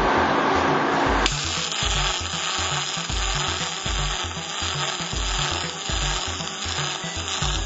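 MIG welding arc running steadily as a bead is laid, starting about a second in, over background music with a steady low beat.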